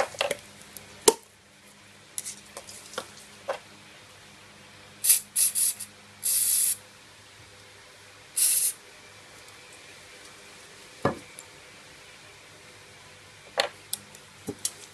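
Aerosol can of contact cleaner sprayed onto the terminals of a coolant temperature sensor to clean them, in a quick string of short hissing squirts, then one lasting about half a second and another a couple of seconds later. Sharp taps and clicks come before and after as the can and the small sensor are handled on the bench.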